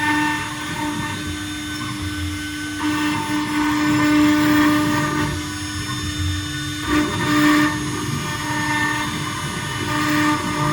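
CNC stone router cutting stone: a steady spindle whine over the rough grinding of the bit in the stone, the grinding swelling and easing as the tool moves.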